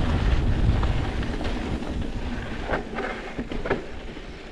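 Wind buffeting the microphone and a full-suspension mountain bike rolling down rough, rocky trail, with a few sharp knocks and rattles from the bike about three to four seconds in. The rushing noise dies down toward the end as the bike slows.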